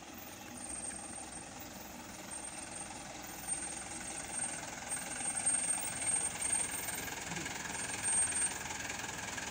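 Minibus engine running as the bus climbs a steep lane and draws up close, growing louder over the last several seconds.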